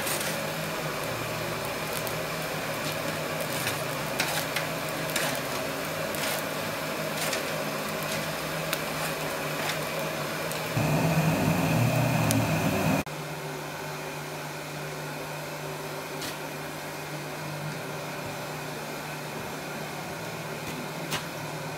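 Coal forge blower running steadily, driving air into the fire, with scattered light ticks over it. It grows louder for about two seconds just past the middle, then drops abruptly to a quieter hum.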